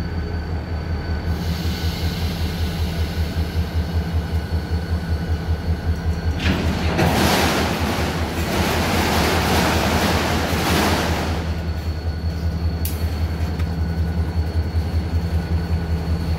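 Freight train of autorack cars rolling slowly past: a steady low rumble that pulses several times a second, with a thin high steady squeal over it. For about five seconds in the middle, a loud rushing hiss rises over the train and then drops away.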